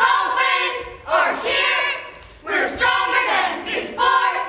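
Cheerleading squad shouting a cheer in unison: four loud chanted phrases in a steady rhythm, each fading before the next.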